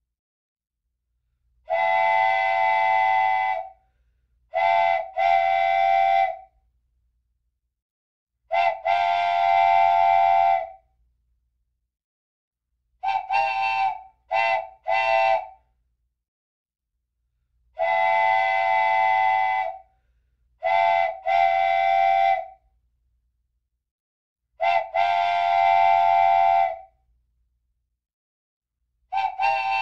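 Blasts of a multi-note horn, several steady pitches sounding together as a chord. They come in a repeating pattern about every seven seconds: a long blast of about two seconds, then two shorter blasts of about a second each.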